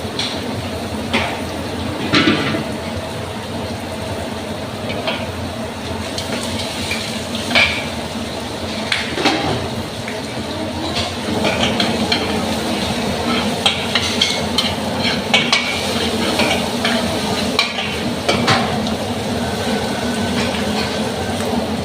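Shrimp and vegetables sizzling in a hot pan while being stir-fried, with a utensil scraping and clinking against the pan over a steady frying hiss; the scraping grows busier in the second half.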